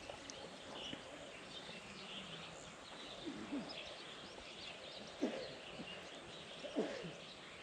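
Rural outdoor ambience: small birds chirping and twittering over a steady background hiss. Three short, low calls that sweep in pitch come about three, five and seven seconds in.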